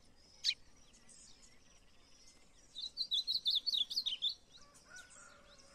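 Small songbird giving one short, high, downslurred call, then about three seconds in a quick run of high twittering chirps lasting about a second and a half.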